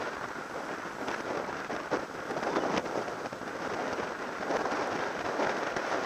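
Wind buffeting a bike-mounted action camera's microphone at racing speed, with a steady rush of tyre and road noise and a few sharp crackles.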